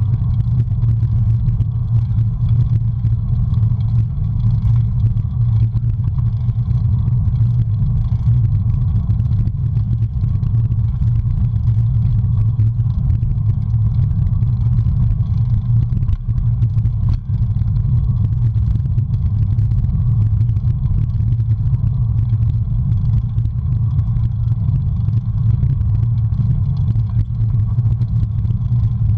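Steady low rumble of wind buffeting a handlebar-mounted camera's microphone, mixed with tyre noise, as a bicycle rolls along an asphalt road.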